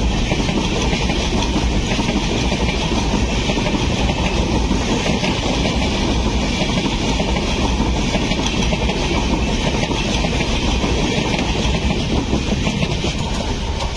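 Passenger train of LHB coaches rolling past on the adjacent track: a loud, steady rumble of wheels on rail, easing off as the last coach goes by near the end.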